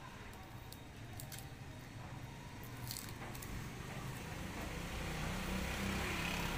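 Crispy deep-fried pork intestine crackling in a few sharp snaps as it is torn apart by hand. A low rumble builds up and grows louder through the second half.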